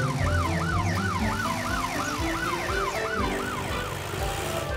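Cartoon emergency-vehicle siren wailing in a fast repeating up-and-down sweep, about three sweeps a second, fading out near the end.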